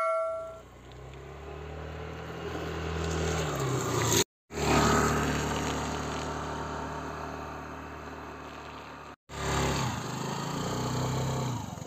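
Small motor scooter engine running as the scooter rides past, its pitch rising and falling, over a hiss of tyres on the wet road. The sound cuts out briefly twice, at about four and nine seconds in.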